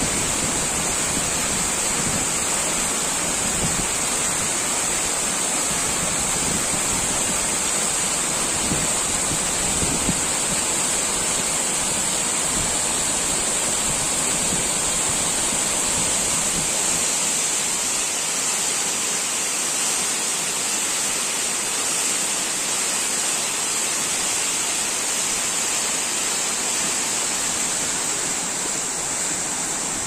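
Steady rush of a tall waterfall, over 20 m high, pouring down a rock face close by. It is running full with spring snowmelt.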